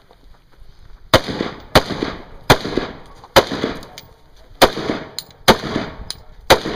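Rifle shots fired in a string during a 3-gun match stage: seven sharp reports about a second apart, each with a short echo, beginning about a second in.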